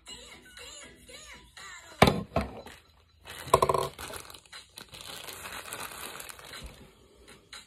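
Handling noise from a plastic tabletop makeup mirror being set down: a loud knock about two seconds in, a second clatter with a short ring about a second and a half later, then a few seconds of rustling as things are moved on the table.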